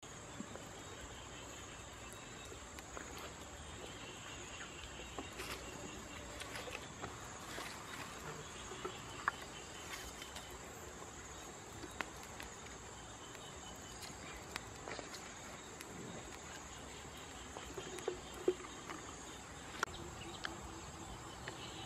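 Steady high-pitched chorus of insects, with scattered sharp clicks and crackles.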